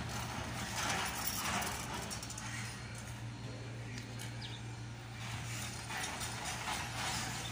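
Steady low machine hum with irregular scuffing footsteps on gravel and dirt.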